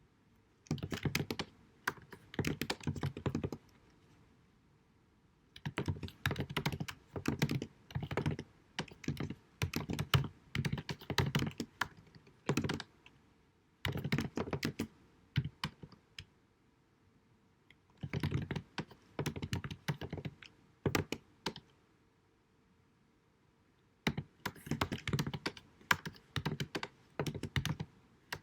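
Typing on a computer keyboard: quick runs of key clicks in bursts of a few seconds, with short pauses between them. A faint steady hum sits underneath.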